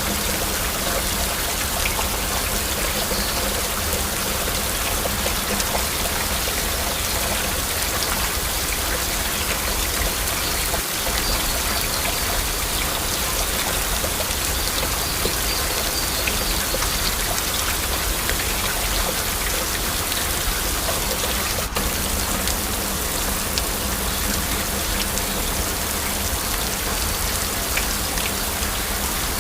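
Steady heavy rain: a dense, even hiss with many individual drops clicking through it.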